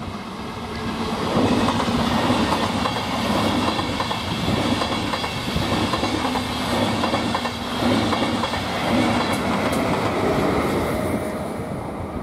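ČD Railjet passenger train passing at speed, its wheels clacking rhythmically over the rail joints and points. The sound builds over about the first second, stays loud and eases off near the end as the last coach goes by.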